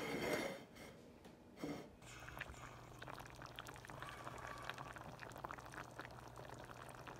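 Thin broth sauce simmering in a stainless steel sauté pan: a steady scatter of small bubbling pops and crackles over a low, steady hum. A short burst of handling noise comes in the first second.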